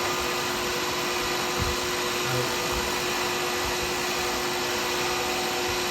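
Workshop machinery running steadily: an even rushing noise with a constant hum, with no change in speed or load.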